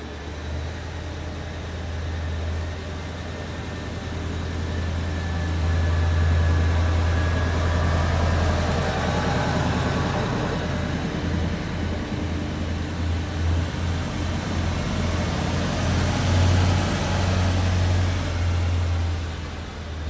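Minuetto diesel multiple unit running slowly during shunting, its diesel engines giving a steady low drone. The drone swells as the unit passes close, with wheel and rail noise and a faint high whine that falls slowly in pitch during the first half.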